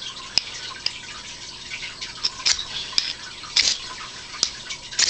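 Irregular light clicks and a few short scratchy scrapes of small tools and fire-starting gear being handled, over a steady faint hiss.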